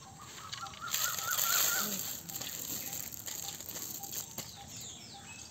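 Wet cement mortar tipped from a metal pan into a brick drain channel, with a rushing scrape about a second in. Birds call over it: a quick wavering trill, then short repeated chirps.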